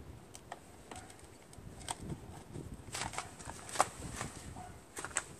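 Plastic air cleaner cover being pushed into its slots on a Briggs & Stratton mower engine: a scattering of short plastic clicks and knocks, the sharpest a little under four seconds in.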